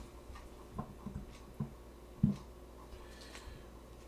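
A handful of light knocks and taps as small kitchen items are handled on a wooden counter while dried ginger is measured out, the loudest about two seconds in.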